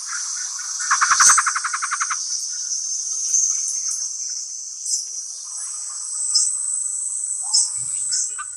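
Forest ambience: a steady high-pitched drone of insects, with bird calls over it, loudest a fast trill lasting about a second, starting about a second in, then scattered short calls.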